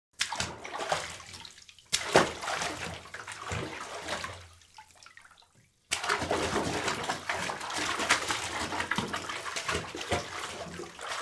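Water splashing and sloshing in a bath, in three stretches that each start suddenly, the second about two seconds in and the last about six seconds in, with a short quiet break before it.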